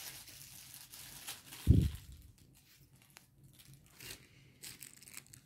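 Plastic bags and gift wrapping crinkling and rustling as they are handled, with one dull thump about a second and a half in.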